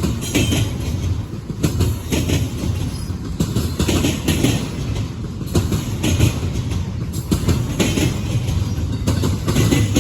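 Double-stack intermodal freight train rolling past, its wheels clacking over rail joints again and again above a steady low rumble.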